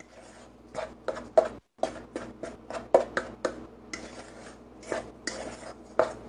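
Wooden spoon stirring a buttery crumb crust mixture in a stainless steel pot. It knocks and scrapes against the metal sides in a string of short, irregular strokes.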